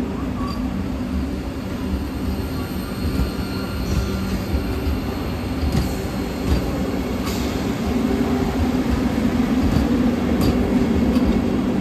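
Vande Bharat electric multiple-unit trainset moving along the platform: a steady low hum from its motors and running gear, with a few light clicks and a faint thin high tone from the wheels.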